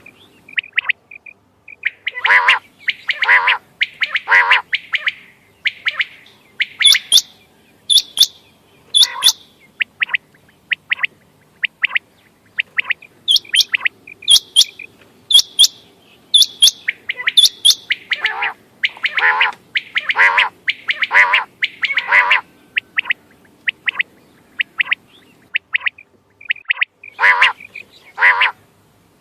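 Quail calling: runs of lower, nasal calls alternate with series of sharp, high whistled notes about a second apart.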